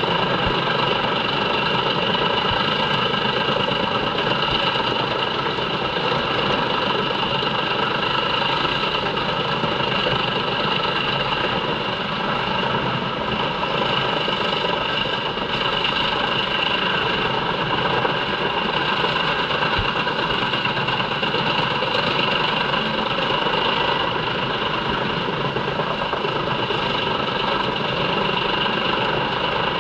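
JENZ HEM 593-R truck-mounted wood chipper running steadily while chipping poplar logs and blowing the chips out of its discharge spout: a continuous loud mechanical drone with a steady high whine.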